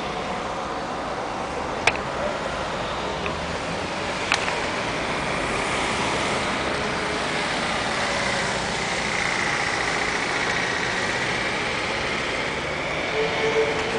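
City road traffic, cars and lorries passing, as a steady noise. Two sharp clicks come about two and four seconds in, and a faint high whine runs through the middle.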